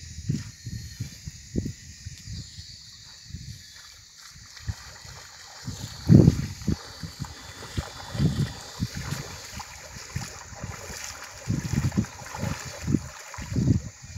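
Shallow river water trickling and splashing, with wind buffeting the microphone in irregular low rumbles. The water grows louder about five seconds in.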